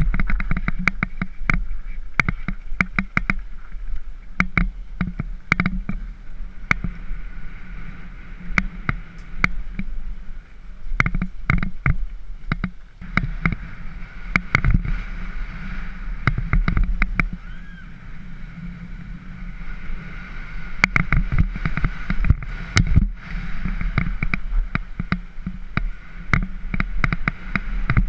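Mountain bike rolling fast down a dirt and gravel trail. The frame, chain and parts rattle and knock over the bumps in quick clusters over a steady rumble of tyres and wind on a helmet-mounted camera. The clatter eases for a few seconds past the middle and picks up again near the end.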